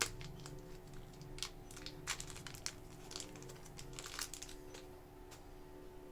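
Crinkling and crackling of super clay packaging being unwrapped, in irregular clusters of sharp crackles that are densest in the middle.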